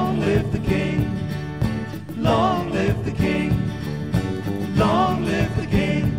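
Background music: a song with a singing voice over a steady accompaniment, the voice coming in phrases a couple of seconds apart.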